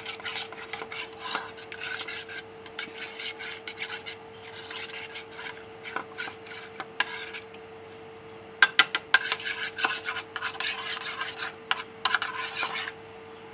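A spoon stirring thin flour batter in a bowl, scraping against the bowl in quick repeated strokes to beat out the lumps. A little past halfway the stirring pauses briefly, then resumes with a few sharp clicks of the spoon against the bowl.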